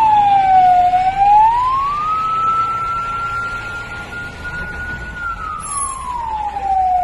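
Siren wailing slowly. Its pitch falls, rises and holds high for a few seconds, then falls again near the end.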